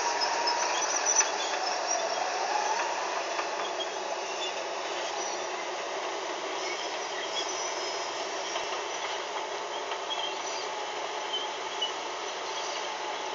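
Walking dragline working: a steady mechanical din with scattered faint high squeals, a little louder in the first two seconds.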